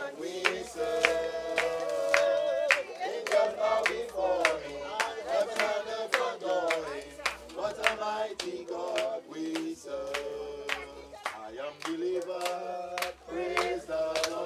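A congregation singing a hymn together, with hands clapping in time at about two claps a second.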